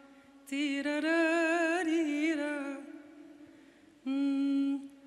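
A woman singing an Arabic song unaccompanied into a handheld microphone. She holds a long note with wavering ornaments from about half a second in, then a shorter steady held note near the end.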